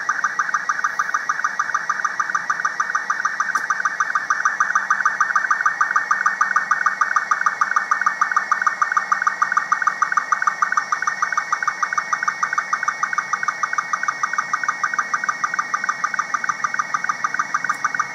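Slow-scan television (SSTV) signal from the CO-66 SEEDS cubesat's downlink, sent in Robot 36 mode and being decoded into a picture: a steady, warbling band of tones with a quick, regular pulse at each scan line.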